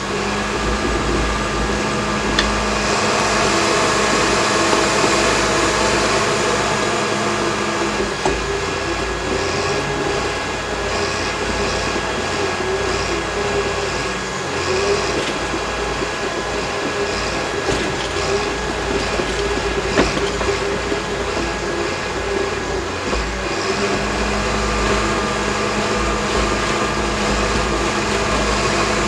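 Cat D6K bulldozer's diesel engine running steadily under load as the machine pushes dirt with its blade. The engine note shifts about eight seconds in and shifts back near the end.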